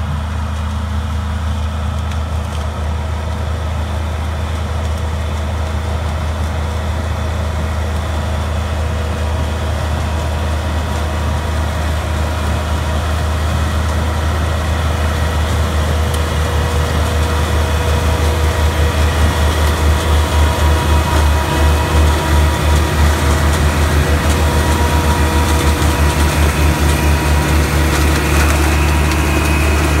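Byron 8400 sweet corn harvester running under load as it harvests, a steady heavy engine drone that slowly grows louder as the machine comes closer. In the second half the drone takes on a fast pulsing beat.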